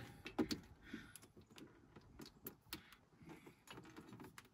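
Faint, scattered clicks and light metallic ticks as a tractor's transmission drain plug is unscrewed by hand.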